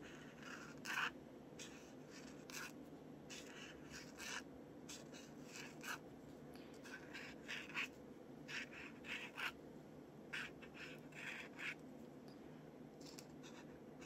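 Posca paint marker drawing on paper: faint, short scratchy strokes, one after another, as outlines are traced around small painted squares, over a low steady room hum.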